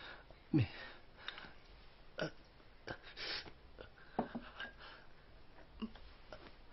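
A man's short groans of pain: a few brief grunts falling in pitch, the loudest about half a second in and the others about every two seconds after.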